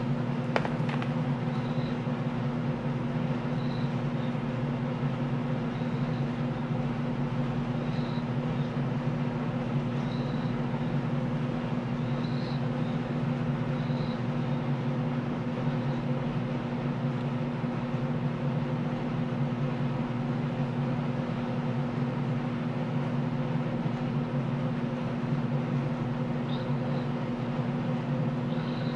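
A steady low mechanical hum, like a motor running, with a single sharp click about half a second in and faint light ticks now and then.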